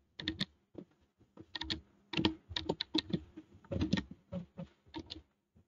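Typing on a computer keyboard: irregular clusters of key clicks with short pauses between them, as a number, a name and a class are entered into spreadsheet cells.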